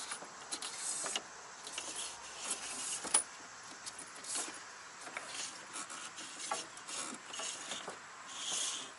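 Faint scattered clicks, taps and rustles of a cable being fed down through the wall cavity into the RV's underbelly, over a low steady hiss.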